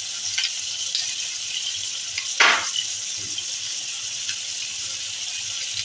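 Boneless chicken breasts sizzling steadily in hot oil and sauce in a frying pan, with one short, louder burst of noise about two and a half seconds in.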